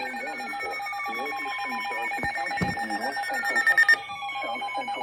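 Layered electronic alert tones: steady tones that pulse rapidly like a phone ringer, with slower tones sweeping downward over them. A few loud pulses come near the end, then the upper tones cut off.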